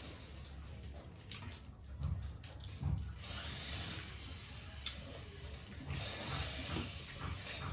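Close-up chewing and crunching of jhal muri, a spicy puffed-rice mix with chips and dal moth, with bursts of crunchy noise and small wet mouth clicks. There are a couple of low thumps about 2 and 3 seconds in.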